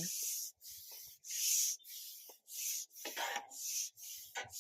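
Carbon fishing pole being fed out hand over hand, its sections rubbing through the hands in short hissy strokes, about two a second.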